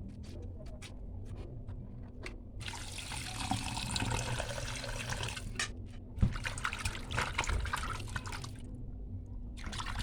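Water running and splashing as raw chicken gizzards are rinsed by hand. It comes in spells with short breaks, starting a couple of seconds in after a few faint ticks.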